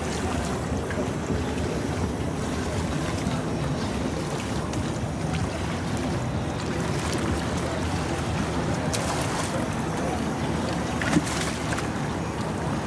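Steady rush of wind on the microphone and water sloshing around a small boat, with a single sharp knock about eleven seconds in.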